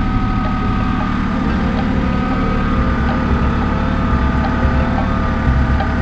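John Deere compact tractor's diesel engine running steadily, with an uneven low throb, while the front loader raises the grapple.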